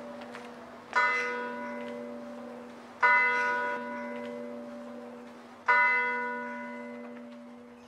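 Church bell tolling, struck three times about two to three seconds apart, each stroke ringing out and slowly fading, with the bell's low hum note sounding on underneath.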